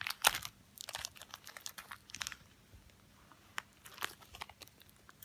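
Small plastic packet of toy gems crinkling and crackling in the hands as it is pulled at to tear it open, in irregular crackles that are busiest in the first two seconds and then thin out.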